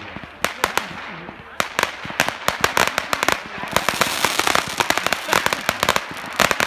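Fireworks display going off in quick succession: a rapid string of sharp bangs and crackles. About halfway through it thickens into a denser barrage with a steady hiss under the reports.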